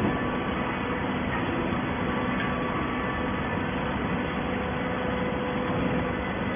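Plastic bottle baling machinery running: a steady mechanical drone with a few faint held hum tones.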